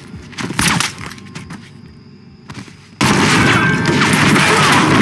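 Gunshots and impacts from a TV drama's action scene: a few sharp cracks in the first second, then about three seconds in a sudden loud burst of sustained rapid gunfire.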